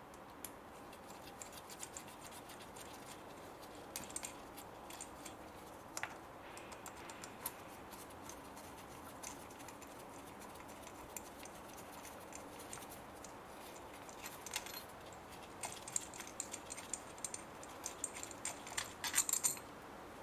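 Light metallic clicks and clinks of a small Torx (star) tool working out the little bolts that hold the ignition coil packs, and of the loose bolts being handled. The clicks are scattered at first and come thicker near the end.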